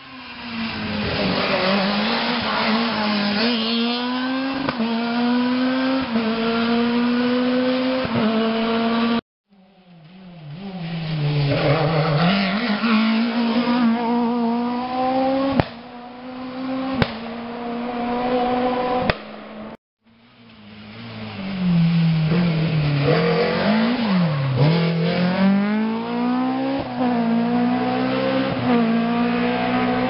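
Rally car engines revving hard under acceleration, three cars in turn in separate cuts. Each engine's pitch climbs and drops back at every gear change as the car drives flat out toward and past. There are a couple of sharp cracks in the middle pass.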